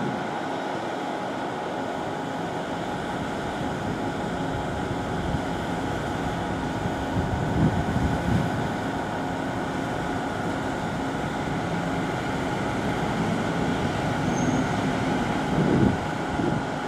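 Airbus A330-203's twin General Electric CF6 turbofan engines running with a steady roar and whine as the airliner touches down and rolls out on the runway. Gusts of wind buffet the microphone a couple of times.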